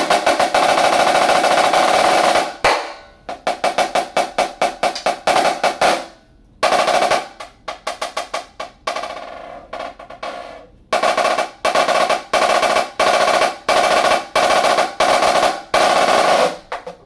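Dynasty DFX 14-inch snare drum played with sticks: a roll to open, runs of quick strokes and a second roll, then single hits about two-thirds of a second apart, each ringing briefly.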